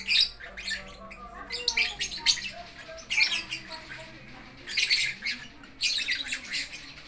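Lovebirds chattering in repeated bursts of short, shrill squawks and chirps.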